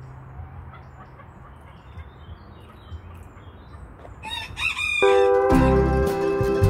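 A rooster crows once, about four seconds in, over a faint background with small bird chirps. Acoustic guitar music then starts about a second later and is the loudest sound.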